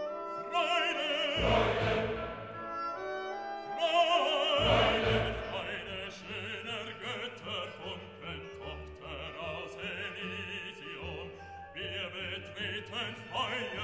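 Classical music: an operatic voice singing with wide vibrato over an orchestra with strings, swelling loudest about four seconds in.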